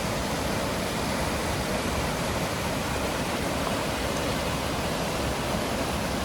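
Waterfall water rushing: a steady, even noise that holds without change.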